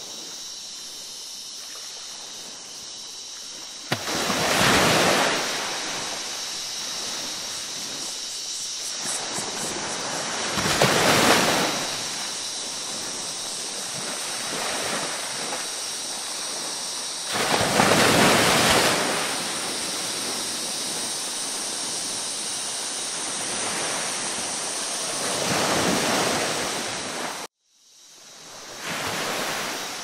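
Ocean surf: a steady wash of water with a wave surging in every six to seven seconds. Near the end the sound cuts out abruptly for about a second, then swells back in.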